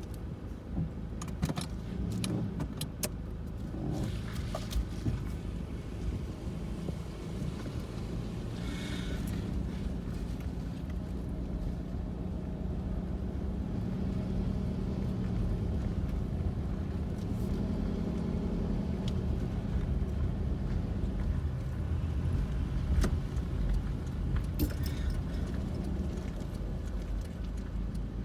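2004 Toyota RAV4 driving slowly with steady road and engine noise and intermittent metallic rattles and clicks, bunched near the start and again near the end: a loose heat shield rattling.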